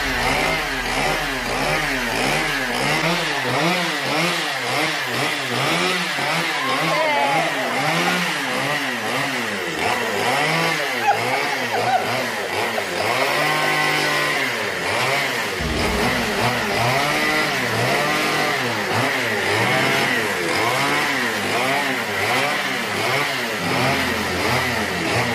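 Chainsaw engine running and revving up and down over and over in short blips as the chain shaves the skin off an apple.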